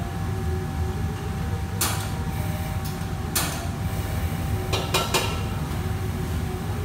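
Several sharp metallic clanks and scrapes of a ladle against a wok, about two and three and a half seconds in, then three quick ones around five seconds in, over the steady low drone and faint whine of the range hood and wok burners.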